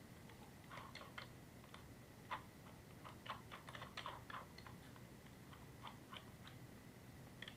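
Near silence broken by faint, scattered clicks and taps from handling a power drill, with no motor running.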